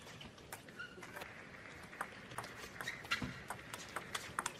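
Table tennis ball clicking back and forth off the rackets and the table during a rally, several sharp ticks a second, with one dull thud of a foot stamp about three seconds in.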